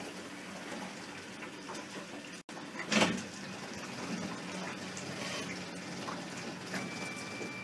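Water sloshing and gurgling against the hull of a glass-bottom boat, with a faint steady hum underneath and a louder splash about three seconds in.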